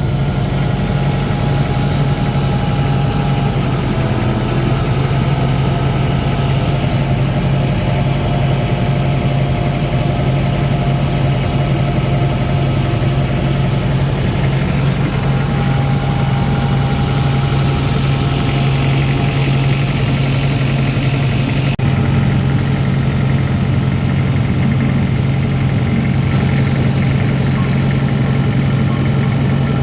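Motorboat engine running at a steady speed, a loud, even hum with no change in pitch.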